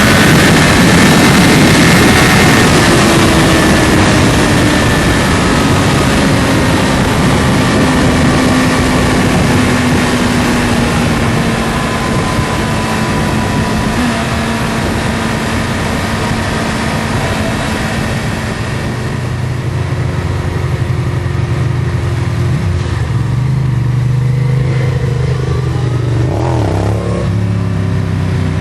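A high-performance vehicle engine running hard under heavy rushing noise, its pitch falling slowly over the first dozen seconds. It then settles lower and steadier, with a brief rev up and back down near the end.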